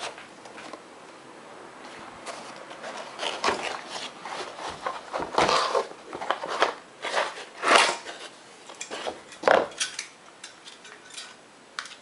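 Packaging of a boxed CPU cooler being handled and unpacked: irregular scrapes, rustles and small knocks, with a few louder scrapes in the second half.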